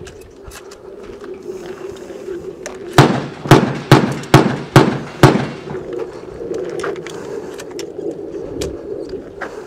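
Mossberg 590 pump-action shotgun fired six times in quick succession, about half a second apart, at steel targets.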